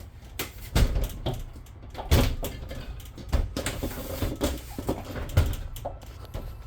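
A door and its fittings in a travel trailer's bathroom being opened and handled: a series of about five knocks and clunks, roughly a second apart.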